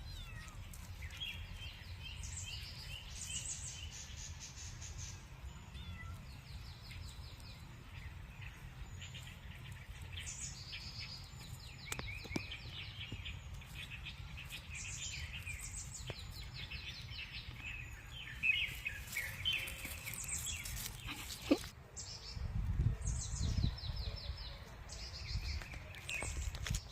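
Small songbirds singing: repeated high chirps and fast trills coming one after another. A low rumble rises near the end.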